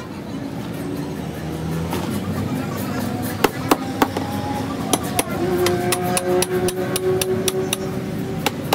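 A run of sharp, irregular hammer blows, a dozen or more, coming thick and fast from about three seconds in.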